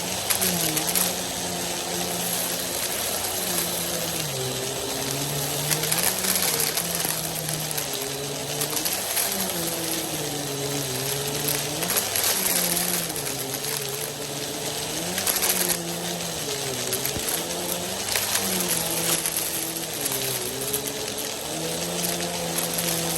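Vacuum cleaner with its brushroll spinning, sucking up dry rice, macaroni and beans that click and rattle through it. The motor hum dips in pitch and recovers every second or two.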